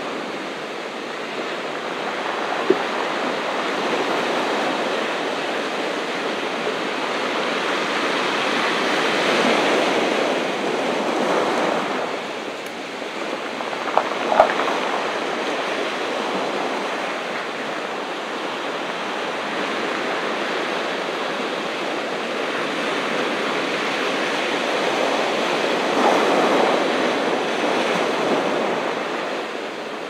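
Ocean surf washing onto a beach: a steady rush that swells louder about ten seconds in and again near the end, with two brief clicks, about three and fourteen seconds in.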